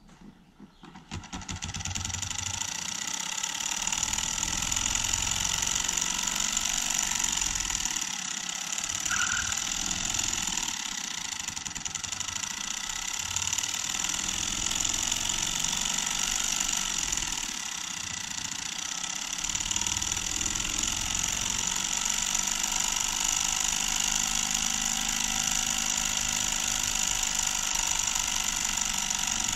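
3D-printed pulse motor, its commutator triggering a pair of IGBTs that pulse its two drive coils from a capacitor, starting about a second in and quickly spinning up, then running steadily with a hum and a high whine.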